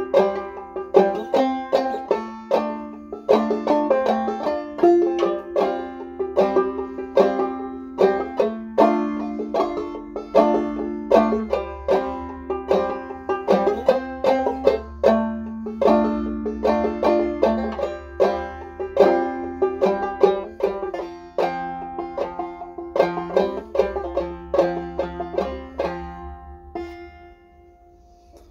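Banjo played clawhammer style: a steady run of plucked notes and brushed strums of an old-time tune, the last notes ringing and fading out near the end.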